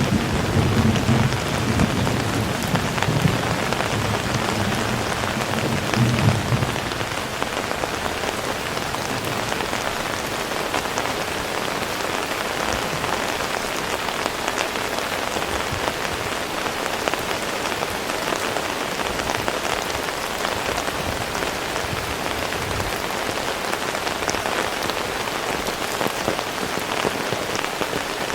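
Heavy rain falling steadily, a dense hiss with individual drops ticking. A low rumble of thunder runs under it for the first several seconds and dies away about a quarter of the way through.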